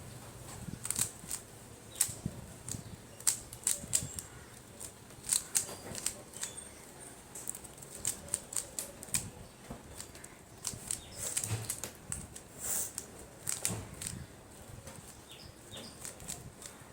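Rubik's Cube being turned quickly during a timed solve: plastic layers clicking and clacking in irregular quick runs, several turns a second, with short pauses between runs.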